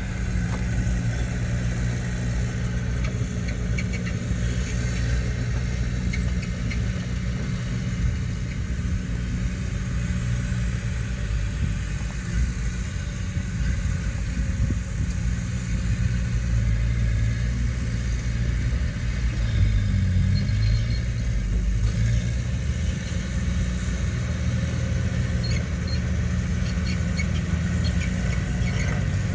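Heavy diesel earthmoving machinery running steadily under work, its low engine note shifting briefly about twenty seconds in.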